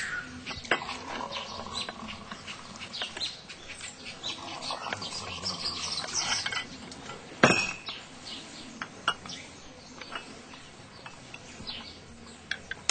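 Small glass tea glasses and a metal teapot clinking on a tray as tea is poured, with scattered clicks and one sharp clink about seven and a half seconds in. Birds chirp in the background.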